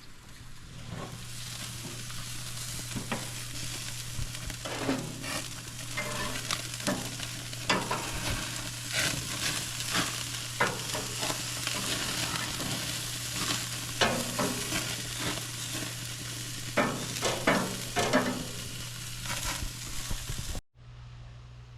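Hamburgers and hot dogs sizzling as they cook, with a steady frying hiss and frequent clicks and scrapes of a utensil. The sizzle cuts off suddenly about a second before the end.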